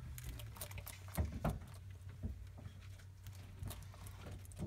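Faint, irregular small clicks and scratches from a bearded dragon feeding on mealworms on reptile carpet.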